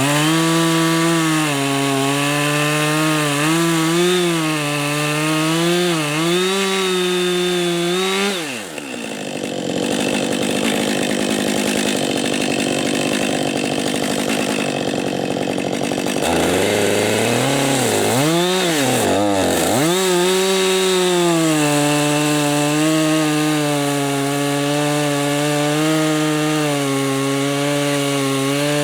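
Two-stroke chainsaw running, its engine note wavering and dipping as it is worked. About 8 seconds in the pitch drops sharply and the steady note gives way to a rough rasping noise for several seconds. The note comes back, dips deeply twice, and then runs steady.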